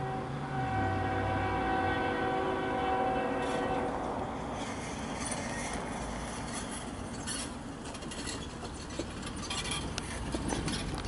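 Nathan K5HL five-chime horn on a CSX ES44AH freight locomotive holding a long blast for a crossing, ending about four seconds in. After it, the approaching train's rumble with scattered clicks.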